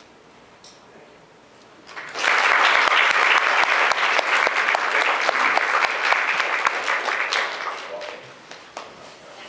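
Audience applauding. Dense clapping starts suddenly about two seconds in, holds for about five seconds, then fades away near the end.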